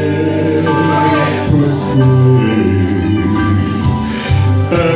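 Live band playing with a man singing into a microphone, cymbal hits marking the beat.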